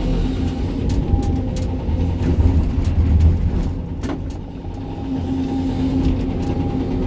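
Sany 305 excavator's diesel engine running under hydraulic load, heard from the cab as a steady low rumble that eases off a little past the middle. A few sharp clacks about a second in and one louder one near the middle.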